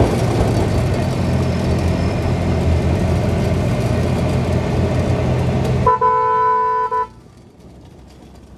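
Heavy earthmoving machinery engine running loud and steady, then cutting off abruptly. A vehicle horn sounds one steady toot of about a second, after which the sound is much quieter.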